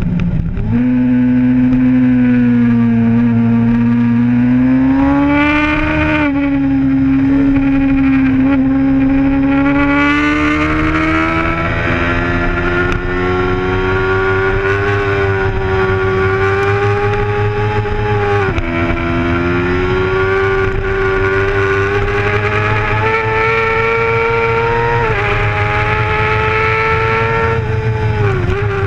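Sport bike's engine at race speed, heard from a camera mounted on the bike, over a rush of wind. The revs climb steadily, and the pitch drops sharply at each upshift, about six, eighteen and twenty-five seconds in.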